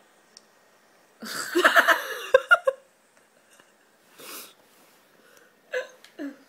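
A baby sneezing: a breathy burst with voice in it about a second in, followed by a softer breath and two short small sounds near the end.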